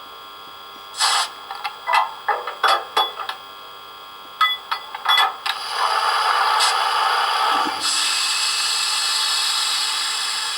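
Sound from an ESU LokSound 4 decoder in an H0 model Class 150 electric locomotive, played through its small speaker: a quick run of short sound effects, then a long steady rushing noise from about five and a half seconds in that turns to a higher hiss about two seconds later and slowly fades.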